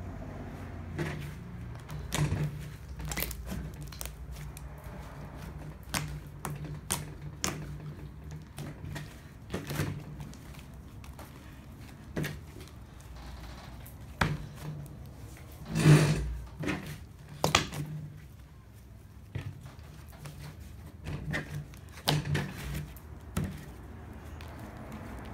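Hands kneading, pressing and stretching slime on a tabletop: irregular sharp clicks and pops with soft squishing, and a louder run of pops about two-thirds of the way in.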